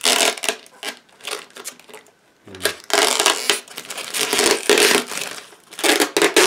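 Thin clear protective plastic film crinkling and rustling as it is peeled and pulled off a vacuum cleaner's floor head, in uneven spurts with short pauses. A soft low bump about two and a half seconds in.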